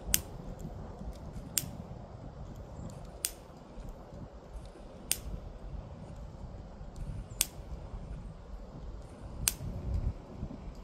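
Handheld lighter being struck again and again, about six sharp clicks spaced a second and a half to two seconds apart: repeated tries to light paper in strong wind. Wind rumbles on the microphone throughout.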